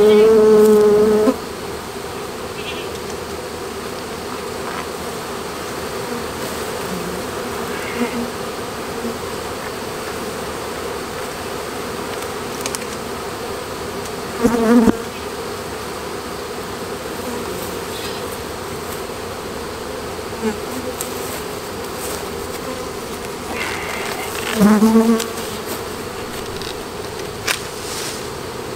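Honeybee swarm buzzing steadily around a wooden hive as the bees move in at the entrance. Louder, fuller buzzes come and go as single bees pass close: at the start, about halfway, and again near the end.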